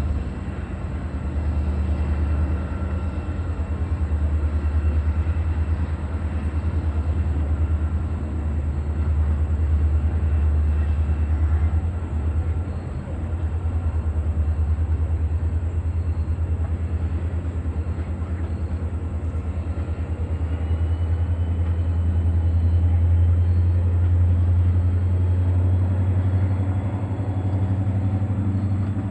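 Diesel-hauled passenger excursion train running by: a steady low rumble of locomotive and rolling cars, with faint high steady whines above it and a brief dip in loudness about midway.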